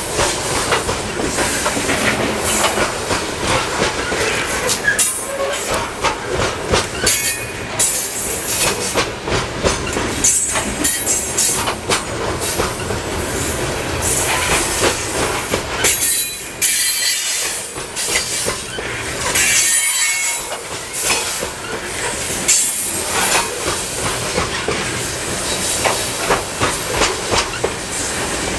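A freight train's loaded sulfur cars rolling past close by. Their wheels clack over the rail joints in a steady irregular run, with high-pitched wheel squeal rising several times as the cars take the curve.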